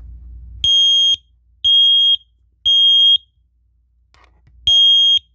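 Smoke alarm sounding its loud, high beeping alarm in the standard three-beep evacuation pattern. Three half-second beeps come about a second apart, then a pause, and the next round starts near the end.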